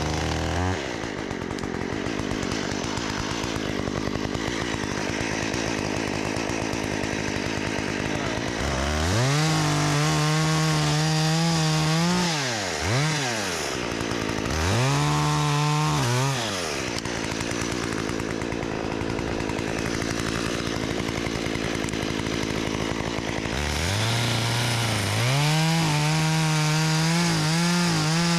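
Two-stroke chainsaw starting up, then idling between three runs up to full throttle, each held for a few seconds, the longest near the end.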